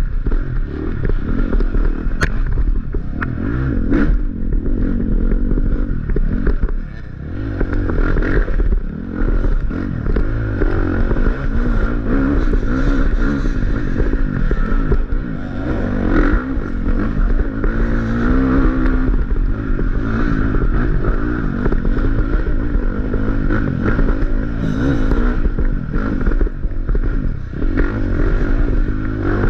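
Dirt bike engine being ridden hard on a trail, its revs rising and falling constantly with the throttle, easing off briefly about seven seconds in.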